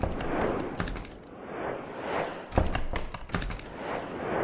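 Soundtrack sound effects: whooshes that swell and fade every second or two, with a run of sharp clicks and low thuds from about two and a half seconds in, the loudest at its start.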